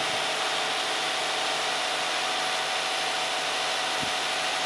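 2005 Hyundai Grandeur TG's engine idling steadily with the hood open, with a soft low knock about four seconds in.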